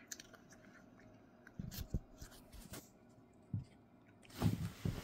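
A cat crunching dry Temptations treats: a few faint, crisp crunches, then a louder rustle near the end.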